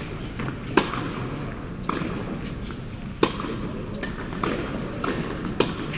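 Tennis rally: sharp racket strikes on the ball about once a second, alternately louder and softer as the two players trade shots.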